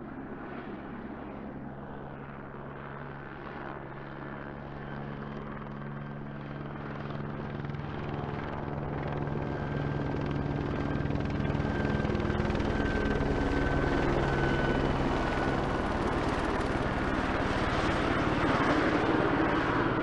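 A helicopter flying, its rotor beating in a rapid steady chop over a low drone. The sound grows steadily louder and brighter from about a third of the way in, and a thin high whine joins partway through.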